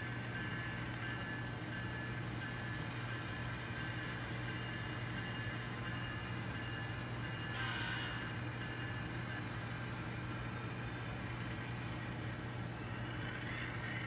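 Model diesel locomotive running slowly over a model railroad turnout, a steady motor hum with a brief rougher noise about eight seconds in.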